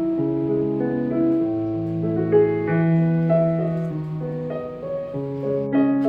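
Background music: a gentle piano tune with sustained chords and a bass line moving under it.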